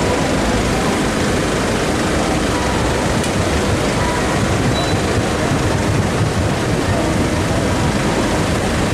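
Steady loud street noise with a low rumble of vehicles.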